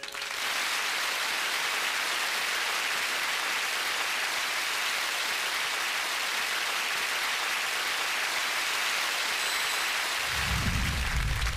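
Studio audience applauding, a steady, even clatter of clapping at one level throughout. About ten seconds in, a deep low rumble starts underneath.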